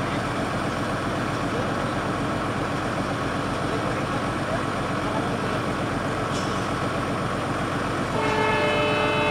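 Diesel locomotive engine running with a steady rumble as the train approaches; about eight seconds in, a horn sounds, a chord of several held tones.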